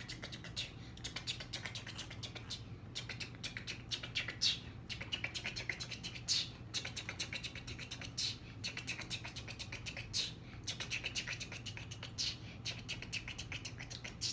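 A child making a continuous rattling noise with his mouth: a fast run of clicks, broken by a louder hiss about every two seconds.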